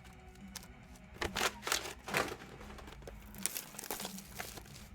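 Packaging crinkling as it is handled, in several short, sharp rustles spread through the moment.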